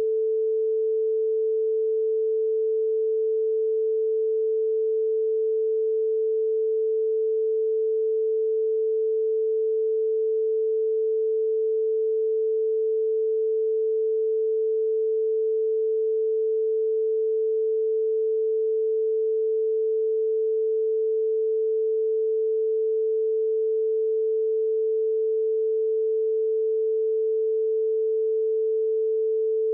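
A steady, unbroken pure tone at one constant pitch and level, cutting in abruptly where the speech stops. It is an inserted censorship tone masking a redacted stretch of the recorded interview.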